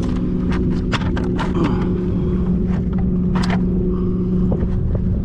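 Wind buffeting the microphone as a low rumble under a steady low hum, with scattered sharp clicks and knocks as the fish is handled and measured.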